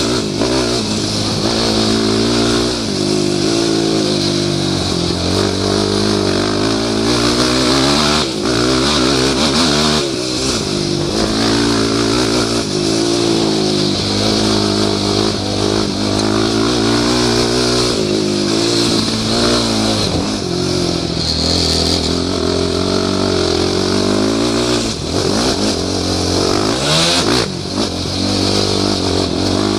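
Yamaha YFZ450 quad's single-cylinder four-stroke engine ridden hard on a dirt track, loud, its revs climbing and falling again and again as the rider accelerates, shifts and backs off.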